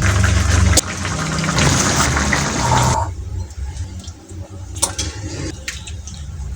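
Water pouring, stopping abruptly about three seconds in, followed by a few light clicks and knocks over a low hum.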